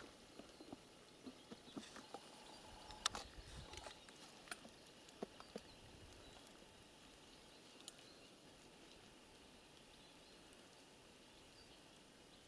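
Faint scattered clicks and rustles from a horse tethered to a birch by a rope, nosing at the knot and shifting on dry grass; the sharpest click comes about three seconds in, and the clicks die away after about eight seconds.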